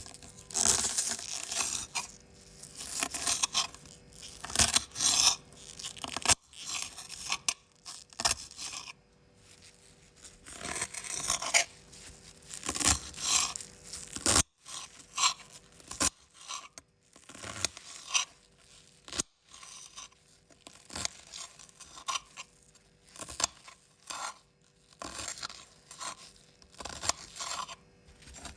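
Knife cutting through crisp raw vegetables: a long run of short, crunchy slicing strokes, roughly one every second or so, at an uneven pace.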